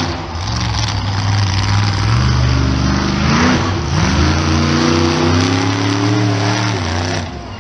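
Monster truck's engine revving hard, its pitch climbing, dropping sharply about four seconds in, then climbing again before the throttle comes off near the end.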